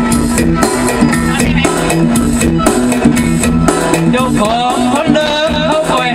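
Upbeat dance music with a steady drum beat and bass line, played loud over a tour bus's sound system from a karaoke music video. A singing voice with a wavering pitch comes in about four seconds in.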